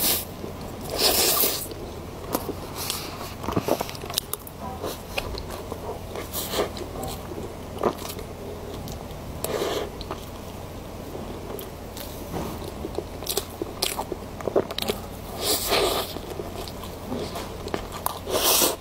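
Close-miked chewing and biting of soft cream sponge cake eaten from a spoon: many small mouth clicks, with louder bites about a second in, near the middle and twice near the end.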